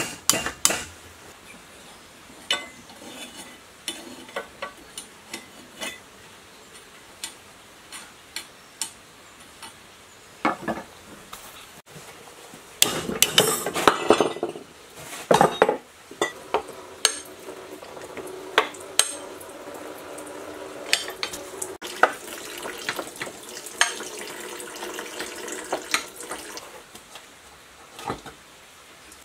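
Irregular light metal taps and clinks as the housing of a scrapped water pump, clamped in a bench vise, is struck and worked apart. About halfway through comes a busier stretch of metal scraping and rattling as a rod is levered under the pump's end cover to pry it loose.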